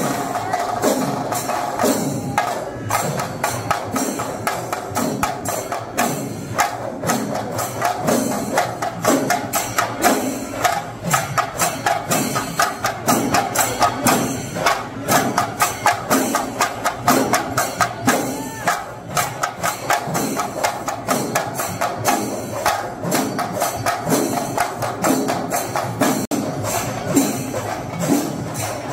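Kerala temple-festival percussion ensemble playing: fast, dense drum strokes with a steady pulse of accented beats, over continuous clashing of hand cymbals.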